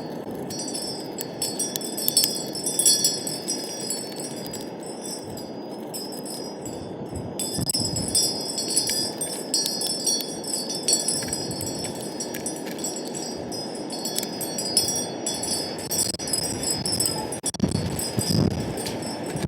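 Metal wind chimes ringing on and off in several high tones over steady wind noise. The chimes fall quiet for a couple of seconds in the middle.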